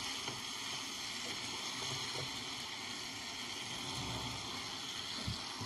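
Mixed vegetables in masala sizzling steadily in a non-stick pan while a silicone spatula stirs them, with a few soft knocks of the spatula against the pan.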